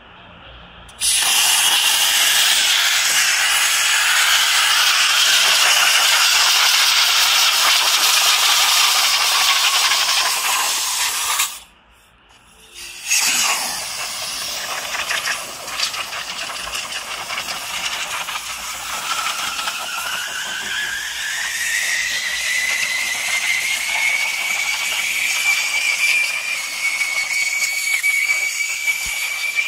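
Compressed air hissing loudly from a hose nozzle worked at a car's engine bay, with a whistling tone that slowly falls. It cuts off for about a second and a half near the middle, then resumes with the whistle slowly rising in pitch.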